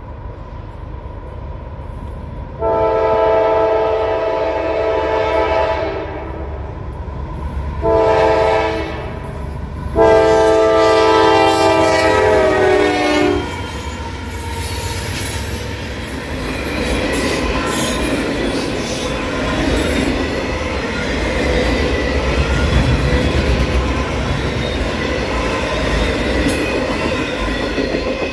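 Diesel freight locomotive horn sounding three blasts, long, short, long; the last one drops in pitch as the locomotive passes. Then a long string of freight hopper cars rolls past with steady wheel clatter on the rails.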